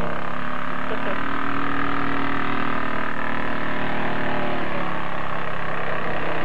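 Mud-run truck engine revving hard and held at high revs, its pitch easing down about five seconds in.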